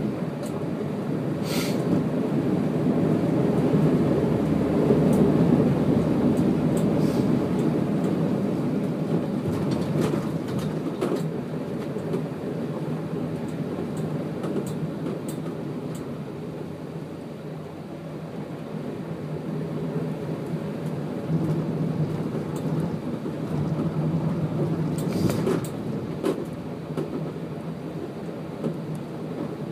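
Steady rushing rumble of wheels rolling through shallow floodwater running across a paved path, swelling and easing, with a few sharp knocks or splashes along the way.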